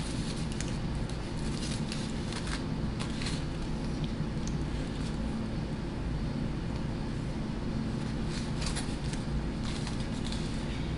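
Aluminium foil crinkling in several short spells as it is peeled back and lifted off a plate of food, over the steady low hum of an air conditioner.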